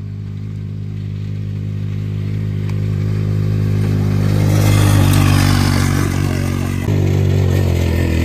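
Straight-piped Hammerhead go-kart engine running hard with an open exhaust, growing steadily louder as the kart comes closer and loudest about five seconds in. About seven seconds in the sound jumps louder and the engine note starts to waver as the kart slides round in the dirt.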